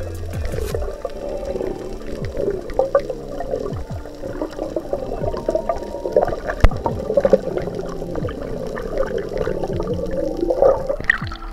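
Underwater sound picked up by the diver's camera: muffled water noise with wavering tones and many scattered sharp clicks.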